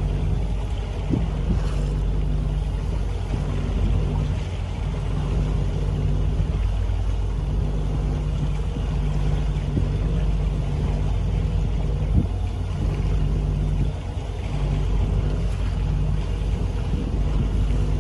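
A small motorboat's engine running steadily, a low even hum, with a few brief gusts of wind buffeting the microphone.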